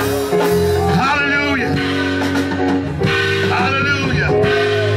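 Live gospel music from a church band: held chords over drums and guitar, with a man singing the refrain in two phrases.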